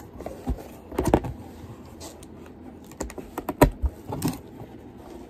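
Corrugated cardboard shipping box being opened by hand, its flaps pulled back: an irregular run of clicks and knocks from the cardboard, the loudest a little past three and a half seconds in.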